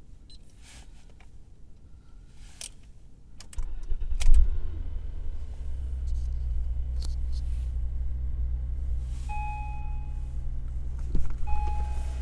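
A few light key clicks, then a Honda Legend's J37 3.7-litre V6 is cold-started about three and a half seconds in and settles into a steady idle, the condition in which the owner says the engine knocks. Two short electronic beeps sound near the end.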